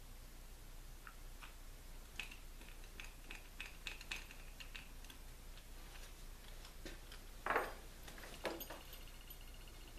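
Small clicks and taps of hands working on a leather backpack, with a louder bump about seven and a half seconds in and a smaller one a second later as the bag is shifted and turned.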